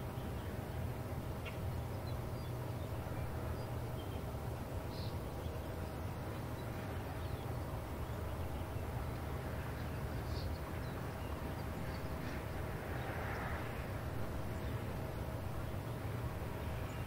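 Low, steady rumble of a distant 2-10-0 steam locomotive working uphill with a loaded freight train, with a few faint bird chirps.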